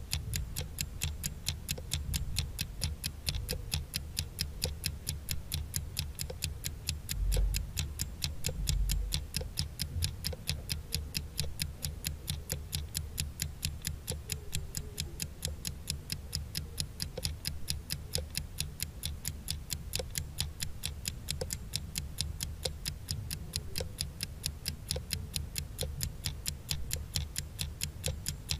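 Countdown-timer sound effect: a clock ticking at an even pace over a low hum, marking the seconds as the quiz timer runs down.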